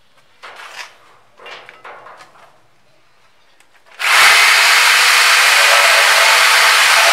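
Electric jigsaw switched on about four seconds in and cutting into a thick oak board, running loud and steady. Before it starts, a few brief faint rubbing sounds.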